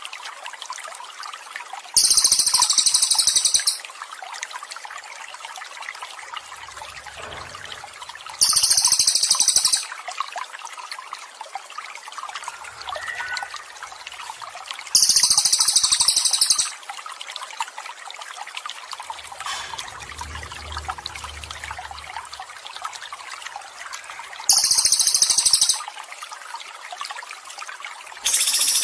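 Steady trickling, gurgling water with a loud, very high-pitched songbird trill that repeats about every six to seven seconds, each burst lasting about a second and a half.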